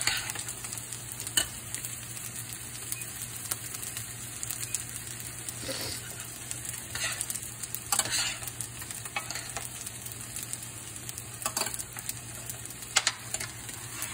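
Vegetables sizzling in a stainless steel sauté pan while metal spoons stir them. Sharp clinks and scrapes of spoon on pan come every few seconds over a steady sizzle.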